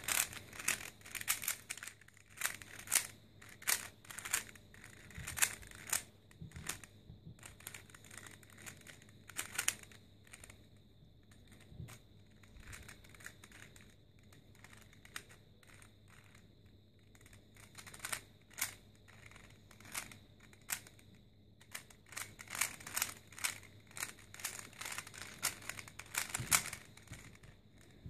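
Plastic 3x3 Rubik's cube clicking as its layers are twisted quickly by hand, in irregular runs of small clicks, fewer for a while about halfway through.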